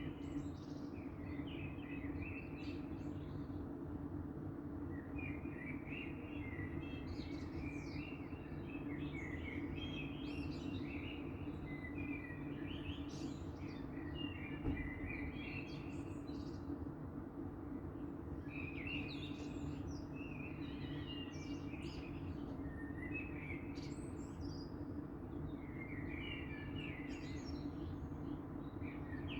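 Birds singing in the dawn chorus: short, varied, high song phrases, one every two or three seconds, over a steady low hum.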